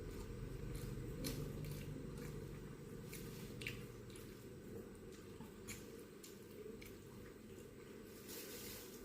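Wet chewing and small mouth clicks of a person eating, in scattered short sounds over a steady low hum.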